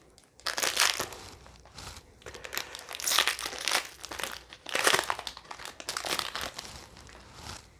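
Plastic crinkling in several short bursts, with quieter gaps between, as trading cards are handled in their plastic sleeves and pack wrappers.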